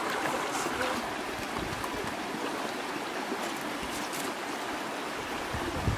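Shallow rocky stream running over stones, a steady rushing and babbling of water.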